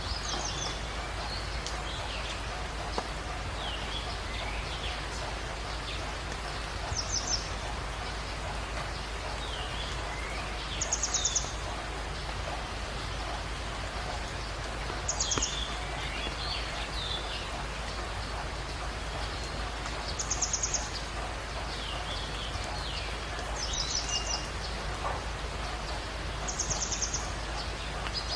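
Jungle dawn ambience: a steady hiss with a bird repeating a short, high, rapid trill about every four seconds, and other birds chirping more softly in between.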